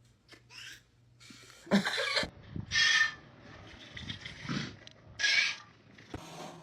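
An animal making several short, harsh, noisy sounds, about four, each under half a second and spaced one to two seconds apart.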